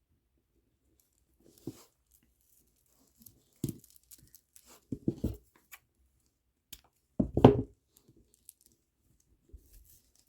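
Plastic pony beads and bracelet string being handled by hand at a table: a scattering of short scrapes and clicks, the loudest about seven seconds in.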